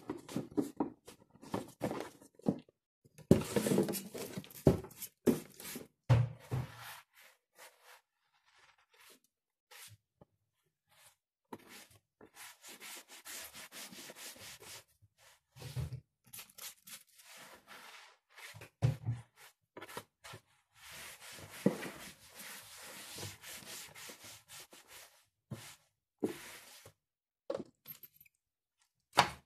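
Rustling and rubbing of things being handled and moved around, with scattered knocks and clicks in between.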